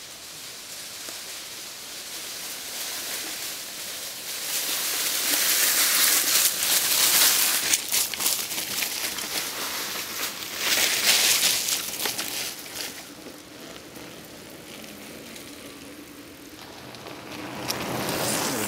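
Mountain bike tyres rolling through dry fallen leaves, a loud rustling crunch that swells as two riders pass close, then fades after about thirteen seconds; a smaller swell of the same noise comes near the end.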